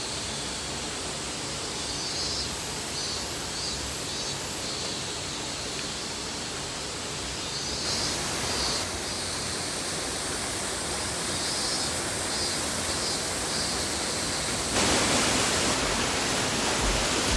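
Waterfall rushing in a steady hiss, with faint high chirping repeating over it; the rush steps louder near the end.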